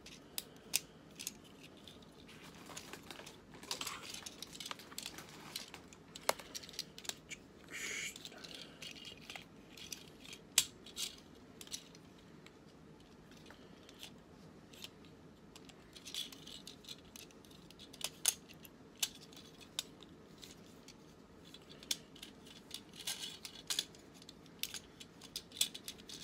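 Hard plastic parts of a Transformers Robots in Disguise Optimus Prime toy clicking and scraping as it is transformed by hand. The clicks come irregularly, with a few sharper snaps, the loudest about ten seconds in.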